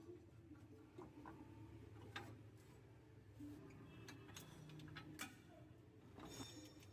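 Faint, scattered clicks and light taps from hand work on the vehicle's cable fittings, spaced irregularly over a low background hum; otherwise near silence.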